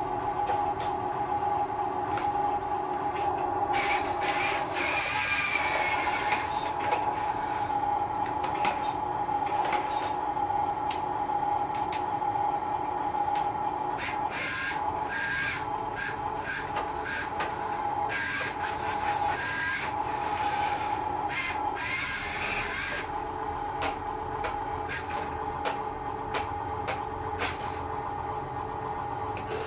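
Huina 1583 RC dump truck's small electric drive motor and gearbox whirring as it drives across a concrete floor and climbs a metal ramp, with a rising whine during two spells of driving, scattered clicks, and a steady hum.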